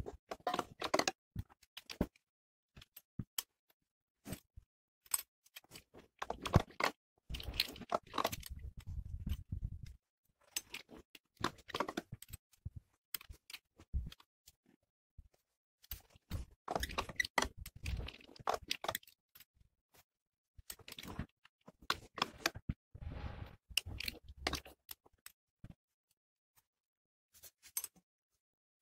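Homemade three-roller pipe bender made of steel channel and bearing rollers, worked by hand: irregular metallic clicks, clanks and scraping as the round metal pipe is cranked through the rollers and the top roller is screwed down, with pauses between strokes.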